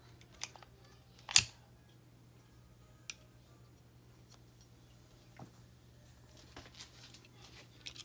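Small clicks and knocks of pistol frame parts being handled, with one sharp clack about a second and a half in and a lighter click about three seconds in.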